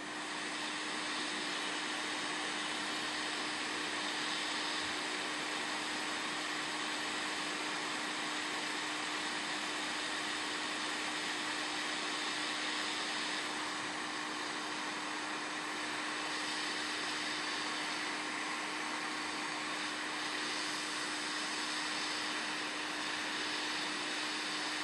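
JBC hot-air rework station blowing at 50% airflow onto a phone's charging connector to melt its solder for removal: a continuous, even hiss of air with a faint steady hum.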